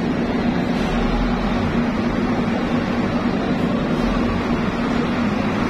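Cargo truck's diesel engine running as the truck creeps slowly across a ferry's vehicle deck, over a steady low mechanical hum.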